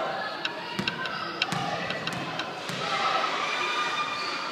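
Basketball game in a gym: a ball bouncing a few separate times over background crowd voices.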